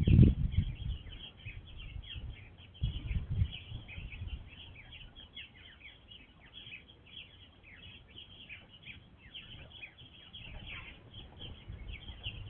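Many small birds chirping at once, a dense chatter of short chirps. Low thuds at the very start and about three seconds in.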